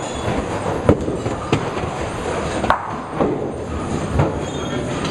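Duckpin bowling alley din: a steady rumble of balls rolling down wooden lanes, with a few sharp clacks of balls striking pins.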